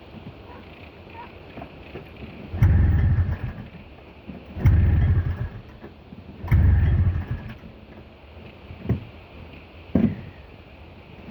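Snowmobile engine being pull-started three times, each pull turning it over for about a second without it catching, then two shorter, quieter pulls near the end. The engine is failing to start in the cold.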